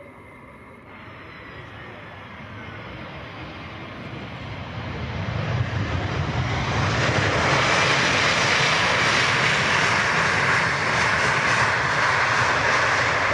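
Airbus A321neo airliner's jet engines on landing, growing steadily louder over the first half as the aircraft comes close, then a loud, steady jet noise.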